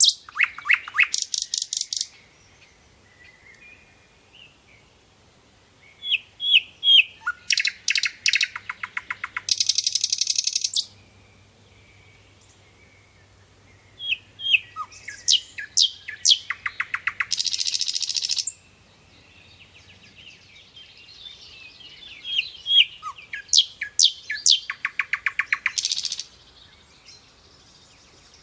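Nightingale singing in separate phrases a few seconds apart, each a run of sharp chirps and whistles that runs into a fast, rattling trill. The song breaks off briefly between phrases.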